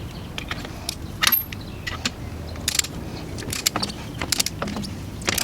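Metal hand tools clinking and clicking on the wheel's lug nuts: irregular sharp metallic clicks and clanks, the loudest about a second in, over a low steady hum.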